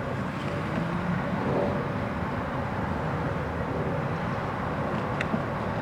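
Steady vehicle-like rumble, with one sharp click about five seconds in.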